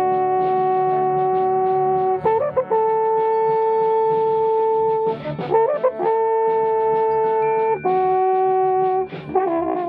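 A valved brass instrument played close up in long held notes, moving to a new pitch every few seconds, over light, quick percussion strokes.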